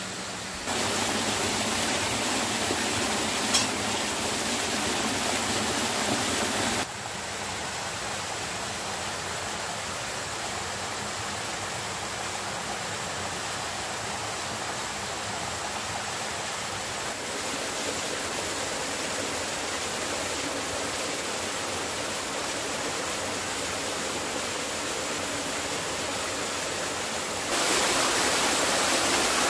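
Steady rushing of running water, like a stream, whose loudness and tone jump abruptly several times. A single sharp tick sounds about three and a half seconds in.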